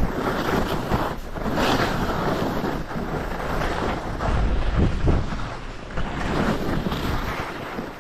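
Wind rushing over the camera microphone as a skier descends, mixed with skis scraping through chopped-up snow, swelling with each turn every second or two.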